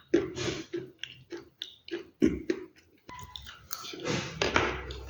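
Close-miked chewing of crunchy food: quick, irregular crisp crunches, with a brief pause about three seconds in, then a denser run of crunching.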